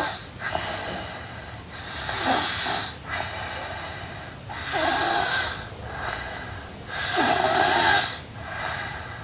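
A sleeping girl snoring: three louder snores about two and a half seconds apart, with softer breaths between them.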